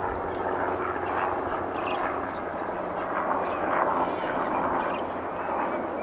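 Steady, distant, engine-like rumble, with faint short high calls scattered through it.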